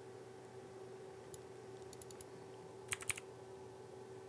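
Light clicks of small hand-handling on a repair bench, a few scattered ones and then a short cluster about three seconds in, over a faint steady electrical hum.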